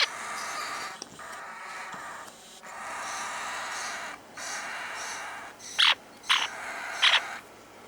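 Young lineolated parakeet giving a soft, continuous raspy chatter for about the first four seconds, then three short, sharp calls near the end, each dropping steeply in pitch.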